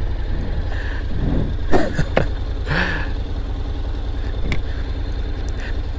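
Honda X-ADV's 745 cc parallel-twin engine idling at a standstill, a steady pulsing low rumble, with a few faint clicks around the middle.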